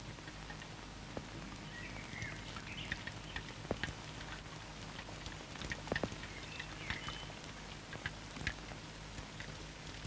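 Faint steady hum and hiss of an old film soundtrack, with scattered crackling clicks and a few short chirps about two seconds in and again about seven seconds in.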